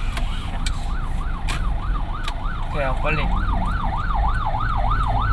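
Ambulance siren on a fast yelp, its pitch swinging rapidly up and down about three to four times a second and growing louder toward the end, over a low rumble of traffic.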